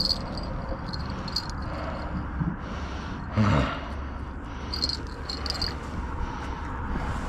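Steady low rumble of wind and traffic on a bridge, with short high chirping pulses on and off and a brief downward-sliding tone about three and a half seconds in.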